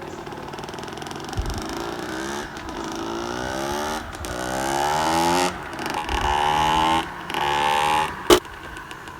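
KTM SX 65's 65cc two-stroke single-cylinder engine accelerating through the gears. Its pitch climbs, drops back at each shift, and climbs again about four times. There is one sharp crack near the end, after which the engine settles to a lower, quieter note.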